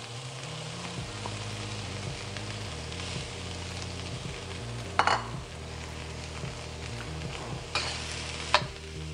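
Leftover rice and diced onions sizzling in hot oil in a wok, a steady hiss. There is one sharp knock about five seconds in, and near the end a metal spatula scrapes across the wok as the stir-frying begins.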